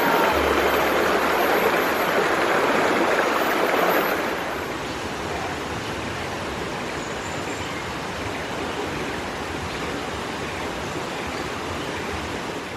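Steady rushing of flowing water, a little louder for the first four seconds and then slightly softer.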